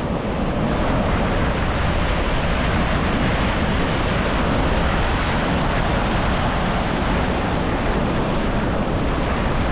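Ocean surf with wind on the microphone: a steady rushing noise that never lets up.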